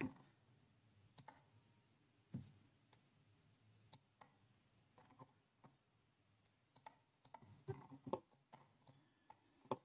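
Faint, scattered clicks of a computer mouse, about a dozen short clicks at irregular intervals with a small flurry near the end, over near-silent room tone.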